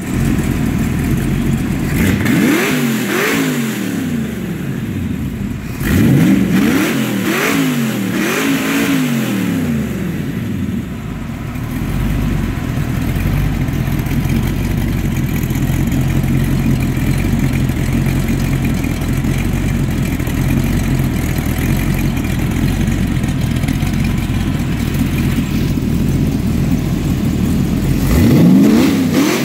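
Carbureted V8 in a bodiless Lotus Esprit chassis, running through short upturned mufflers. It is blipped up in quick revs over the first several seconds, then idles steadily, and revs again near the end. It idles and picks up cleanly.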